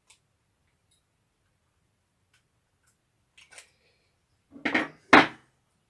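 Handling noise at a workbench: a few faint clicks, then two short knocks about half a second apart near the end, as drill parts or tools are picked up and set down.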